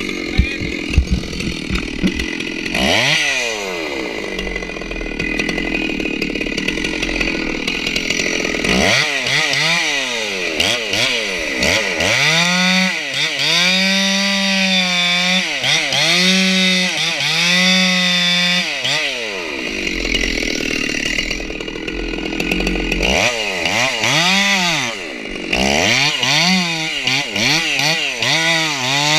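Stihl 064 two-stroke chainsaw revving hard in repeated bouts, its pitch rising and falling as the chain cuts, dropping back to idle for a few seconds about two-thirds through. It is sawing out the holding wood in the corner of a redwood's back cut from the front of the tree. A couple of sharp knocks at the very start.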